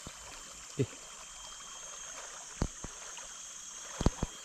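Steady riverside background of flowing water, a constant hiss. A short falling vocal sound comes about a second in, and a few sharp knocks follow, clustered near the end.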